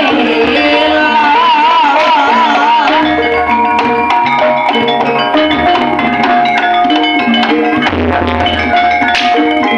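Loud Javanese gamelan-style music played through a sound system: ringing metallophone notes over a steady drum beat, with a wavering melody line about one to three seconds in.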